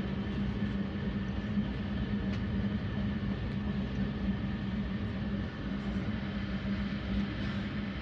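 Train running noise: a steady rumble with a constant low hum.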